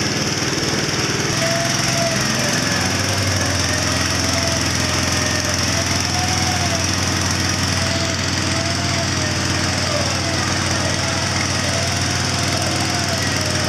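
A small engine running steadily and loudly. A low hum sets in about a second in, and a thin tone rises and falls slowly above it.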